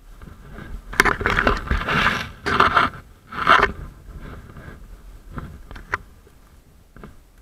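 Close scraping and rustling of brush against a rifle-mounted camera as it pushes through dense undergrowth, in three loud bursts during the first four seconds, followed by a few light clicks.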